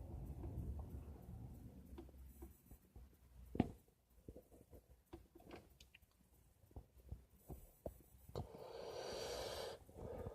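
Faint scattered clicks and small taps of handling, then near the end about a second and a half of a person's breathy exhale.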